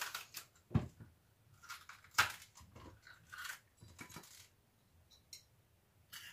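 A knife cutting into bell peppers and the peppers being torn open by hand: a series of separate crisp crunches and snaps, the loudest about two seconds in, with fainter ticks near the end.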